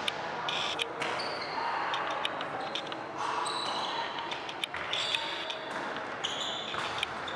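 Tchoukball play in a sports hall: repeated sharp ball impacts and short high squeaks of players' shoes on the hall floor, echoing, with voices murmuring in the background.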